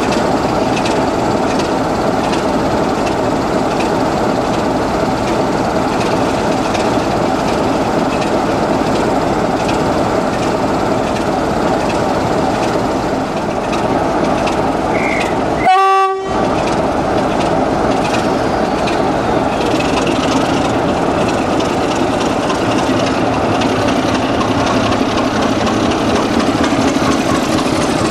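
Class 33 diesel locomotive's Sulzer eight-cylinder engine running steadily, with a short horn toot a little past halfway through. The engine then works a little harder as the locomotive starts pulling the train away.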